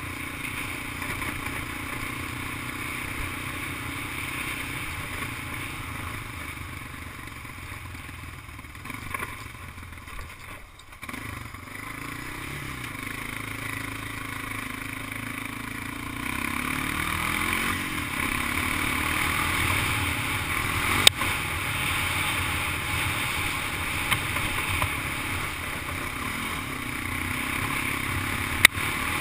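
Honda ATV engine running under way, with a steady rushing noise over it. The engine pitch rises and falls past the middle, and a sharp knock comes about two-thirds of the way through, with another near the end.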